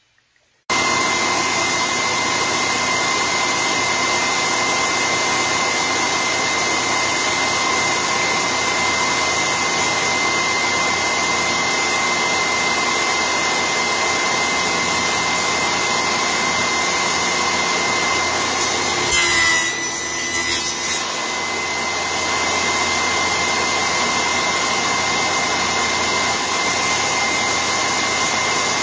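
An electric power tool's motor running steadily with a constant high whine. It starts abruptly about a second in, with a short rougher stretch about two-thirds of the way through.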